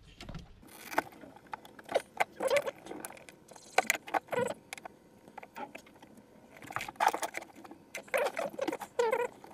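Hands handling the loop's clear plastic tubing and metal fittings: irregular clicks, rubbing and rustling in two spells, as tubes are pulled off and refitted.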